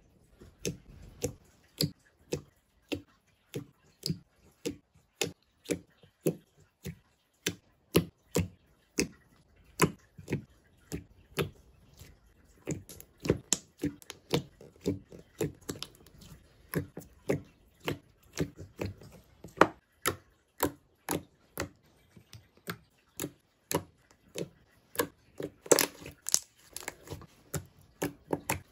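Thick, fairly firm slime being pressed and squeezed with the fingers, giving a steady run of sharp clicking pops about one to two a second as trapped air is forced out.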